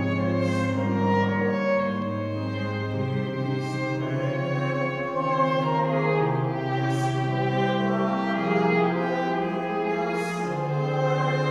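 Slow instrumental offertory hymn music: sustained string-like notes over a low bass line that moves to a new note every second or two.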